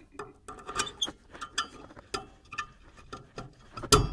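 Irregular small metallic clicks and ticks as the switch mechanism inside the metal housing is handled, with a sharper click near the end.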